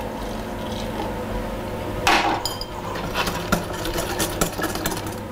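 Wire whisk clinking and tapping against a glass mixing bowl in quick, irregular strokes as hot milk and cream are whisked into beaten egg yolks and sugar for crème pâtissière. A louder burst of noise comes about two seconds in, and a low steady hum runs underneath.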